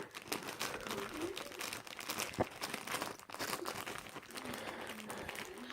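Crisp packet crinkling and rustling irregularly as a pet rummages in it for the crisps, with one sharp knock about halfway through.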